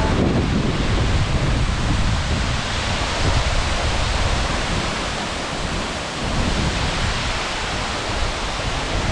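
Steady, loud rush of a tall waterfall close by: Wli Falls pouring onto the rocks.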